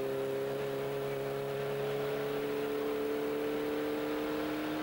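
Ford Escort RS Cosworth rally car's turbocharged four-cylinder engine heard from inside the cabin, held at steady high revs with its pitch rising slowly.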